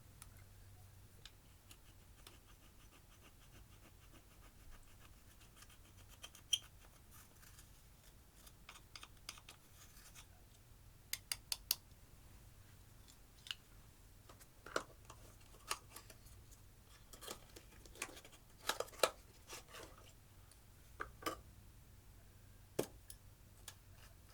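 Slime being worked by hand with makeup mixed in: first a faint run of fine scratchy ticks, then scattered sharp clicks and pops, a few coming in quick runs of three or so.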